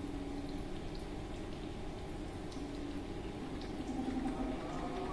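UV-visible spectrophotometer running a wavelength scan: a low hum that comes and goes in stretches of about half a second to a second, with scattered faint ticks.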